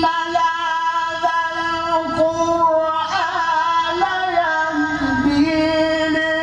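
A man reciting the Qur'an in the melodic tilawah style into a microphone, holding long, high notes. He makes an ornamented turn about halfway through, dips lower, then climbs back to the held note near the end.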